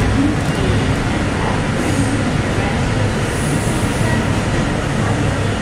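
R160 subway car running on the rails, heard from inside the car: a steady, loud rumble of wheels and running gear, with brief faint high squeals about two seconds in and again near the middle.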